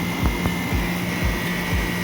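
Outdoor unit of a 2.5-ton split-type air conditioner running, its compressor and condenser fan making a steady hum with low, even thuds about four times a second. The system is running on a low R-22 refrigerant charge.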